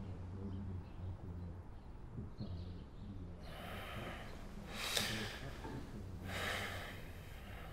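A man breathing heavily, two long noisy breaths in the second half, the first the louder, over a low steady hum.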